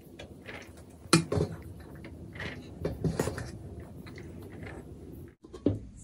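Rice being served onto a stainless steel plate: a few sharp taps and clatters against the steel, about a second in and again around three seconds in, with a softer knock near the end.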